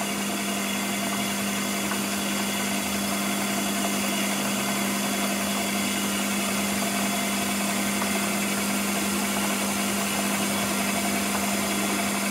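Metal lathe running steadily while its cutting tool turns down a steel brake caliper guide pin to a smaller diameter: a constant low hum with a hiss over it.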